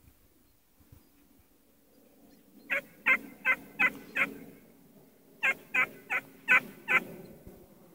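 Maremma sheepdog puppy barking: two runs of five short, sharp yaps at nearly three a second, the first starting a little under three seconds in and the second about five and a half seconds in.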